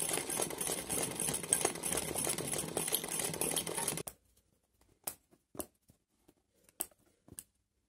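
Sewing machine running fast, stitching free-motion embroidery, stopping abruptly about halfway through. Then four sharp snips of small scissors trimming the embroidery threads.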